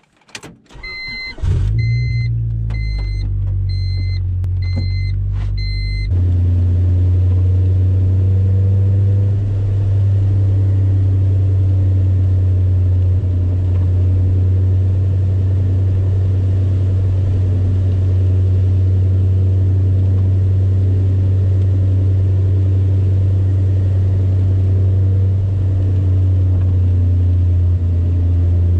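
Honda Civic EK coupe's four-cylinder engine starting about a second in, while a dashboard chime beeps repeatedly for several seconds and then stops. After that the engine runs steadily with a low hum.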